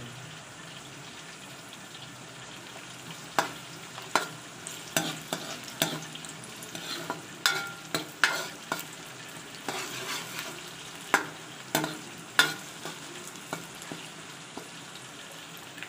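Chopped onion and ginger sizzling gently in oil in a metal pot. From about three seconds in, a metal spoon stirs the pot, knocking and scraping against its sides in irregular clicks, a few with a brief ring.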